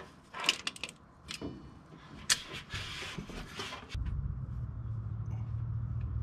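Hand tools on the header bolt: a socket and vise grips clink and scrape against metal in a few sharp knocks. About four seconds in, a steady low hum starts abruptly.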